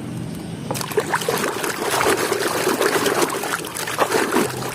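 Water running and splashing as a muddy toy vehicle is rinsed clean, heavier from about a second in.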